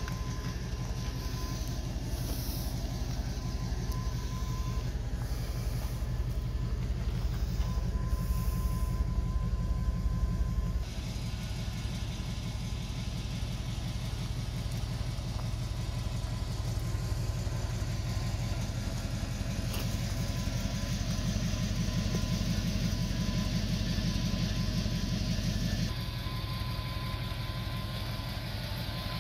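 Holden Commodore VT SS V8 engine idling, a steady low pulsing rumble. The level drops abruptly about a third of the way in and again near the end.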